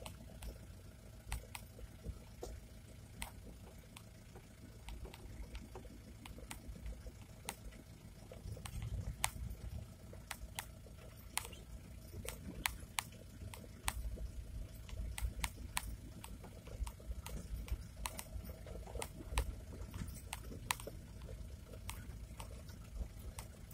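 Inside the cab of a Chevrolet LUV 4x4 pickup rolling slowly down a rough dirt track: a steady low rumble from the truck, broken by many irregular sharp clicks and rattles as the body jolts over the bumps.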